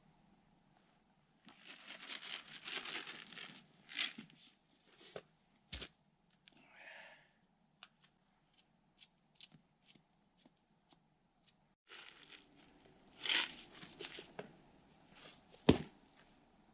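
Close crinkling and tearing handling noise in two spells, with a run of light clicks between them and two sharp knocks, the second the loudest, near the end.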